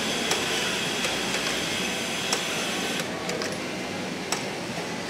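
Juki five-thread overlock sewing machine running steadily while stitching a seam, stopping about three seconds in. A few sharp clicks follow.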